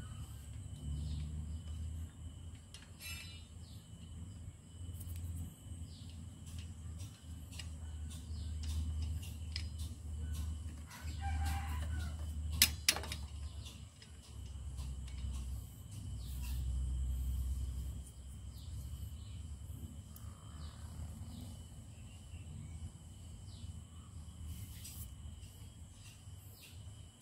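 A rooster crows about eleven seconds in, and a fainter crow follows near twenty seconds, over a steady high insect buzz and an uneven low rumble. A single sharp click comes just after the first crow.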